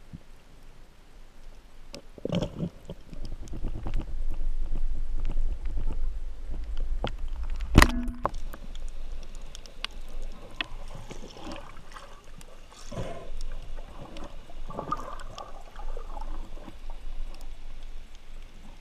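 Underwater sound of a speargun firing: one sharp crack nearly eight seconds in, the loudest moment, amid a low water rumble. Afterwards come scattered knocks and rustling as the speared fish struggles on the line and shaft.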